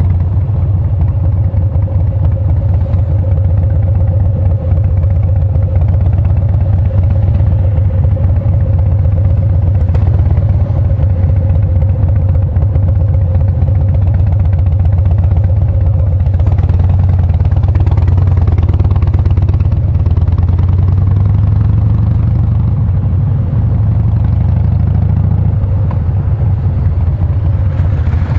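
Harley-Davidson Breakout's V-twin engine running steadily while the motorcycle is ridden, with the engine note shifting slightly around two-thirds of the way through.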